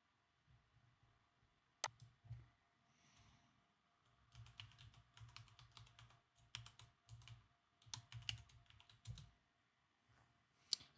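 Faint keystrokes on a computer keyboard as a login password is typed: a run of quick taps from about four to nine seconds in, with a single sharper click about two seconds in and another just before the end.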